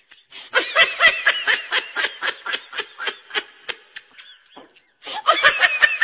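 Laughter sound effect: a run of quick, rhythmic 'ha-ha' pulses, about four a second, that fades out over about four seconds. A second burst of laughter starts near the end.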